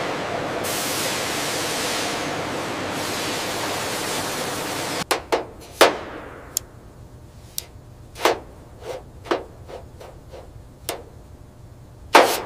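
A steady rushing hiss that cuts off about five seconds in. It is followed by about ten sharp, irregularly spaced metal taps and clicks from a small hand gauge being worked against sheet metal.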